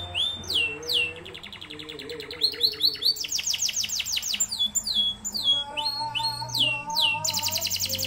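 Domestic canary singing a continuous song of fast trills: long runs of rapidly repeated notes alternating with sweeping down-slurred whistles.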